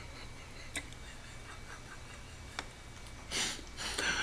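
Quiet room tone with a steady low hum, broken by two faint clicks and, near the end, two short rustling noises as a man moves in front of a computer webcam.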